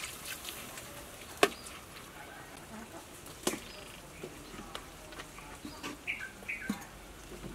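Water poured into a hot steel wok hisses briefly at the start, followed by two sharp knocks about two seconds apart, the first the loudest. Near the end a lighter clatter as a metal lid is set on the wok.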